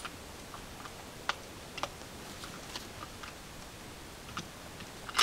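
Scattered small clicks and ticks close to the microphone over a quiet, even background. There is a sharper click at the start and another near the end.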